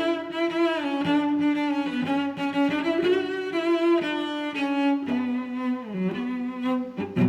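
Background music: bowed strings, a cello-like melody moving from note to note with slides between them.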